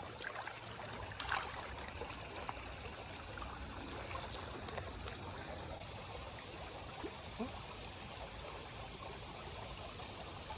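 Creek water running over a riffle, a steady rushing trickle, with a few faint clicks and one brief knock about a second in.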